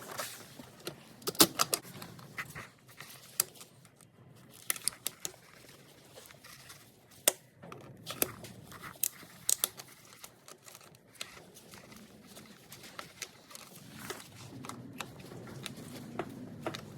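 Irregular light clicks and clinks of hand tools on metal parts, with several sharper knocks, during the removal of a coolant crossover pipe with a 10 mm socket and pliers.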